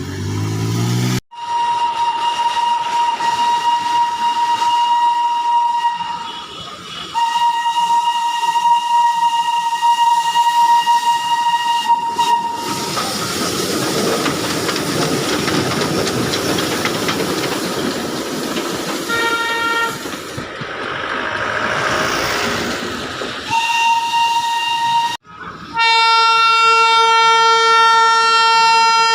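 Darjeeling toy train locomotive whistle sounding in long, steady blasts, with a stretch of hissing train running noise between them. Near the end a lower-pitched whistle or horn blast sounds.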